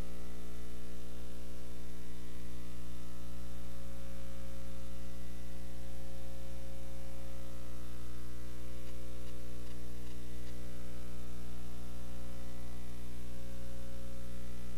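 Steady electrical mains hum with a stack of overtones, over an even hiss.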